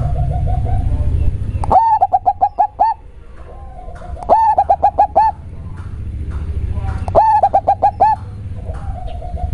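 Zebra dove (perkutut) cooing three times, each phrase a drawn-out note followed by a quick run of five or six short coos. The voice is deep, described as very bassy. A low steady hum runs in the background between phrases.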